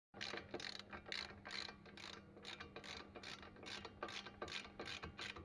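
Hand ratchet wrench clicking in short repeated strokes, about two to three a second, as it turns a nut on a car's front suspension knuckle.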